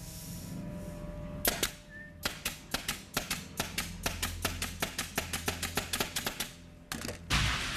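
Pneumatic nail guns firing nails into a wooden plank: a rapid run of sharp shots, about six a second for some four seconds. Audience applause breaks out near the end.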